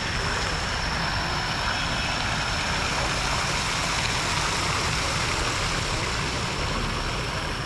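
Garden fountain splashing steadily, with a thin high-pitched whine held over it and a low rumble beneath.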